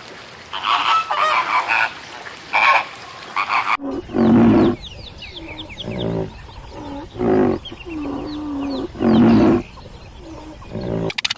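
Animal calls: a rapid run of short, choppy calls for the first four seconds, then after a sudden cut a series of five loud, drawn-out calls about a second and a half apart.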